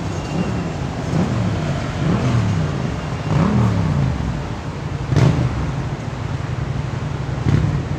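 Car engine revving, its pitch rising and falling several times over a steady low rumble, with two sharp knocks about five and seven and a half seconds in.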